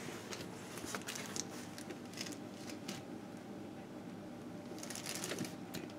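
Faint handling noise: soft rustles and small clicks, with a brief louder scratchy rustle about five seconds in.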